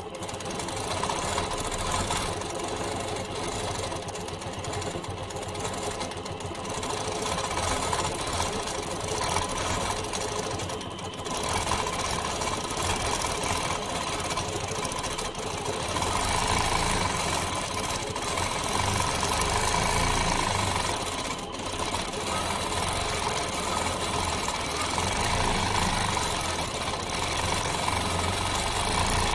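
Longarm quilting machine stitching under a stitch regulator, running continuously as the head is guided around small pebble shapes, its sound swelling and easing with brief lulls about 11 and 21 seconds in.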